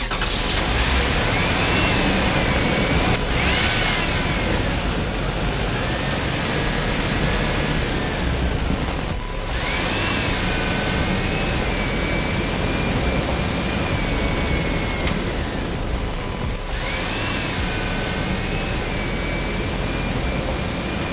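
Steady motor noise over a hiss, with a whine that wavers up and down in pitch. The whine drops out and comes back three times, near 9 and 16 seconds among them.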